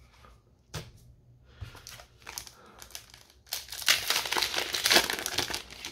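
A Flesh and Blood booster pack's wrapper crinkling as it is torn open by hand. A few light rustles and a click come first, then a loud stretch of dense crinkling and tearing from about three and a half seconds in.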